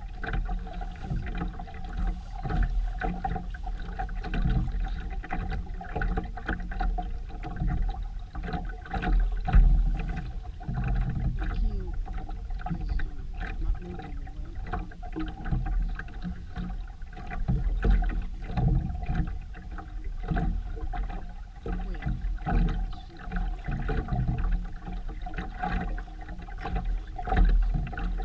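Aboard a sailboat under way: water rushing and splashing irregularly along the hull over a continuous low rumble.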